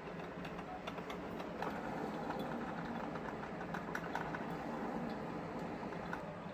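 Ten-year-old coffee maker running: a steady noisy hum dotted with many small clicks and crackles.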